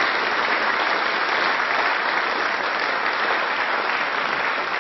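Applause from many members in a parliamentary chamber: steady, dense clapping.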